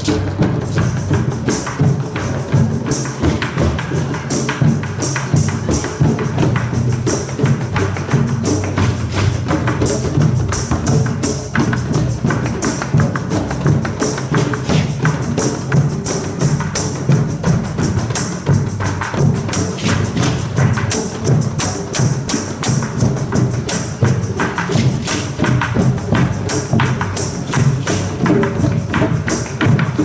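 Drum and percussion circle: a group of drums and small percussion instruments playing together in a dense, steady rhythm.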